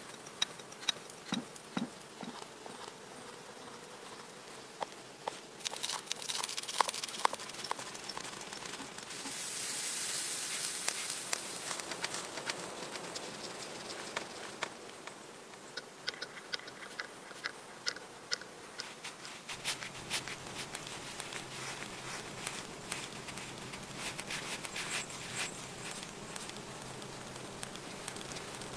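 Camp cooking sounds from a small grill stove: scattered clicks and knocks of utensils and a kettle being handled, with a stretch of sizzling about ten seconds in.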